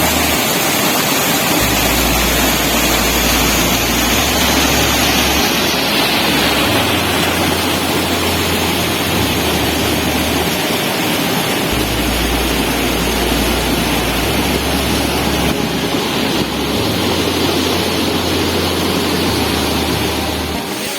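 Waterfall: a loud, steady rush of falling water, its higher hiss thinning about six seconds in.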